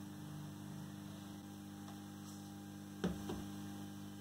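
Steady low mains hum from a powered-on audio amplifier and its speakers, idling with no signal. A sharp click sounds about three seconds in, with a smaller one just after.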